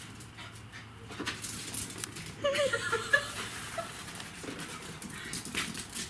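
Two small dogs, a black puppy and a small brown dog, playing: short pitched dog vocalisations about halfway through, among scuffling and rustling of the padded fabric under the puppy.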